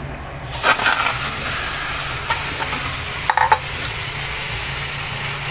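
Raw chicken pieces sizzling as they land in a dry, hot aluminium wok, with a steady hiss that starts about half a second in and a couple of brief knocks. The hiss is the chicken's own water cooking off on the dry metal.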